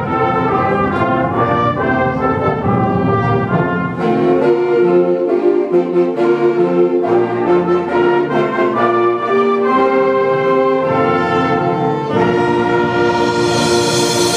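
School concert band playing, with brass instruments carrying sustained chords that change every second or two. Near the end a bright hissing wash swells in over the held chord.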